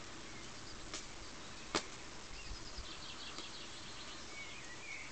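Faint small-bird chirping over a steady background hiss, with a quick run of short repeated chirps about three seconds in. Two sharp clicks a little under a second apart come early, the second louder.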